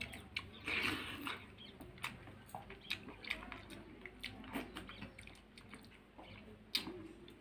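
A person eating rice by hand from a steel plate: chewing and many short mouth and finger clicks, with a louder rustle about a second in.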